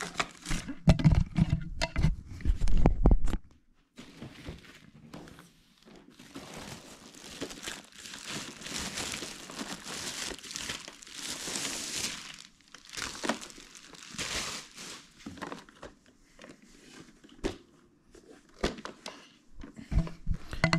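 Thin plastic wrapping bag crinkling and rustling as it is pulled off a robot vacuum, in irregular bursts. Several handling knocks and thumps in the first three seconds or so.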